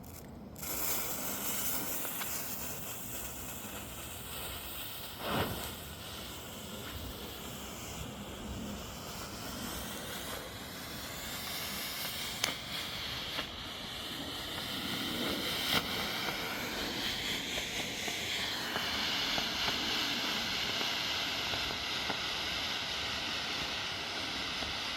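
Firework smoke stick lit about a second in, then hissing steadily as it pours out a thick plume of smoke, with a few faint knocks.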